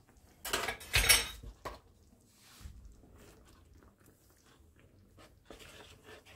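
A brief clatter of kitchen utensils about a second in, then a wooden spatula stirring a thick tomato sauce in a frying pan, a soft uneven scraping and slopping.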